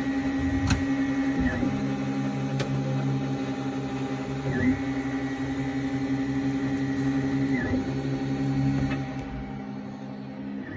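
FDM 3D printer running a print: its stepper motors hum in several steady tones that dip and change pitch about every three seconds, with a few light ticks. The sound grows quieter near the end.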